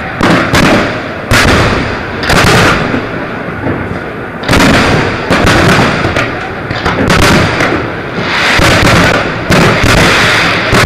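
Aerial firework shells bursting in a rapid series, about a dozen loud bangs roughly a second apart, with continuous noise between them.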